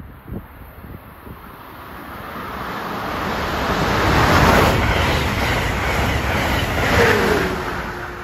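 Amtrak Keystone push-pull train, cab car leading and electric locomotive pushing at the rear, passing close along the platform: the rush of wheels on rail grows to a loud peak about four seconds in, holds, then fades. Near the end, as the locomotive goes by, a whine drops in pitch and then holds steady.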